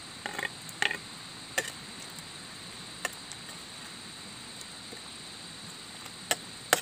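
Metal ladle clinking and scraping against a steel wok as vegetables are stirred into a boiling sauce: a handful of short sharp clicks, several in the first second and two more near the end, over a steady hiss.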